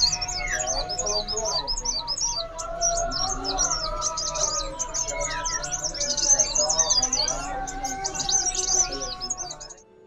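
Songbird in full continuous song: rapid, high-pitched chirps and quick sweeping notes repeated without pause. It cuts off abruptly near the end.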